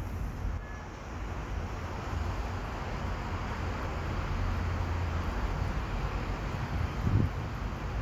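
Steady background noise with a low hum, and one short low thump about seven seconds in.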